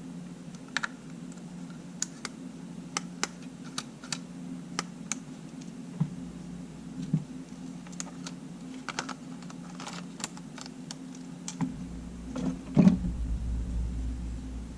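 Irregular small clicks and taps from small tools and parts being handled on a workbench, over a steady low hum, with a louder knock about thirteen seconds in.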